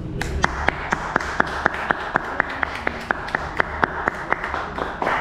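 A group of people clapping together in a steady rhythm, about four claps a second, stopping shortly before the end.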